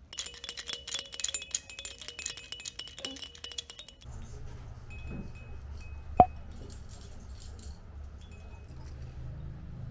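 Small bells or chimes jingling in quick, dense strokes for about four seconds, then stopping abruptly. A low steady rumble follows, with one sharp click about six seconds in.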